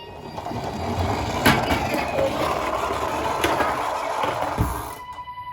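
Toy ambulance minicars rolling down a cardboard slope: a rattling rumble of small wheels with a few sharp knocks. Near the end a steady electronic siren tone starts.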